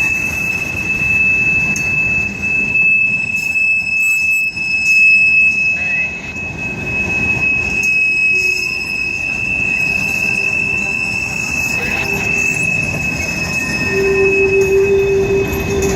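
Railroad cars rolling past, their wheels giving off a steady high-pitched squeal over the rumble of the train. A short lower squeal joins near the end.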